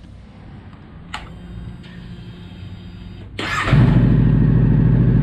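Honda Rebel 500's parallel-twin engine being started after an oil change. A click comes about a second in, then a faint steady hum. About three and a half seconds in, the engine catches and settles into a steady idle.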